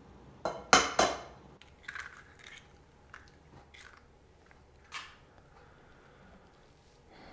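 Egg being cracked: two sharp knocks of the shell against a hard edge about a second in, then faint crackling as the shell is pulled apart, and one more light click about five seconds in.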